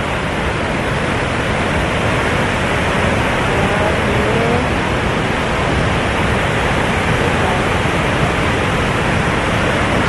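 Waterfall rushing: a loud, steady noise of falling water.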